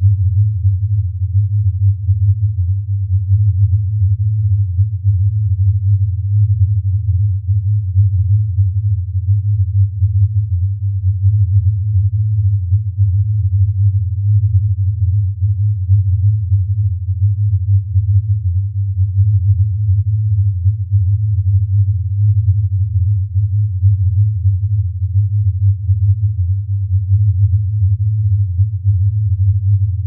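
A deep, steady synthesized drone with a fast, uneven flutter in its loudness. It is a data sonification of black sphalerite, a mineral stone's laboratory analysis turned into sound.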